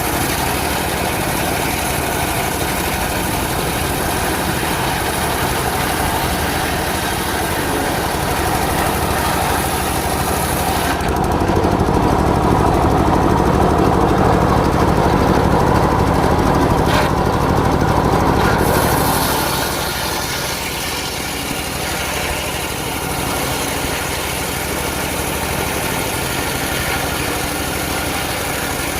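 Homemade engine-driven circular sawmill running steadily, with a louder, heavier stretch of about eight seconds in the middle before it settles back.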